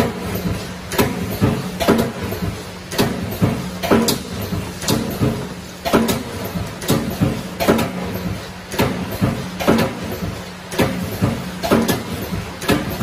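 Automatic row-type wire mesh spot welding machine at work: the welding head clacks down onto the wire crossings again and again, about two sharp strikes a second, over a steady low hum.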